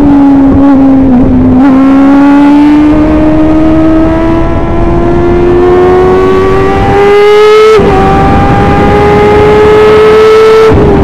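Formula 1000 race car's 1000 cc motorcycle engine at high revs, heard from the open cockpit, pulling hard with its pitch rising steadily. A quick upshift from third to fourth about three-quarters through drops the pitch, then it climbs again and begins to fall right at the end as the driver lifts.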